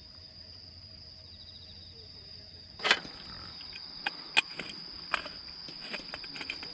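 Crickets chirring steadily in the night. About three seconds in there is a loud knock, then a run of light metallic clicks and taps from a gas canister being screwed onto a camping stove head.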